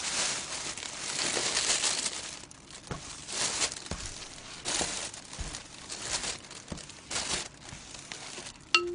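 Rustling and crumpling of a paper wipe rubbed over a table top, in uneven surges with a few light knocks. A chime melody starts right at the end.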